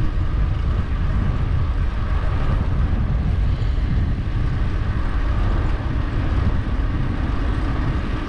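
Wind buffeting the microphone of a bike-mounted action camera while riding: a steady, low rush without breaks.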